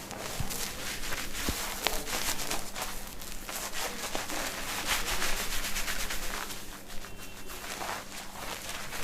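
Fingers rubbing and scratching through shampooed hair on the scalp during a head massage: a dense run of quick scratchy strokes, with a few sharp clicks in the first two seconds.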